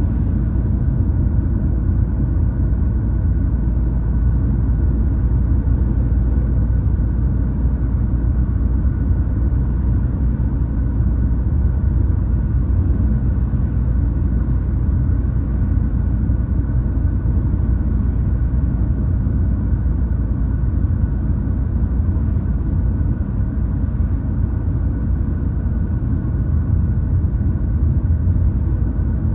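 Steady low rumble of a car driving at road speed, heard from inside the cabin: tyre and engine noise with a faint steady hum above it.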